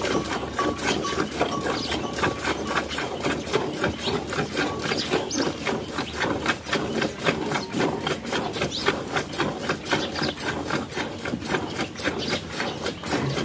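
Cow being milked by hand: squirts of milk hitting the milk already in a plastic pail, in a quick, steady rhythm of several strokes a second.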